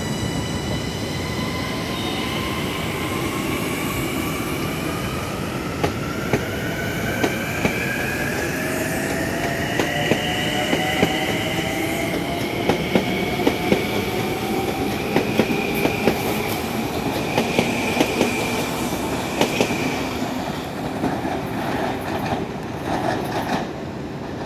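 Long Island Rail Road M9 electric train accelerating out of a station: its traction motors whine in several tones that rise steadily in pitch, with clicks from the wheels over rail joints coming faster as it gains speed.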